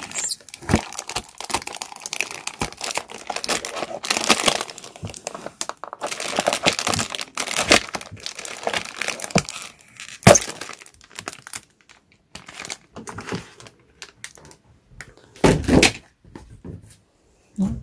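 Clear plastic packaging crinkling and a cardboard toy box being handled, irregular crackles with a few sharper knocks.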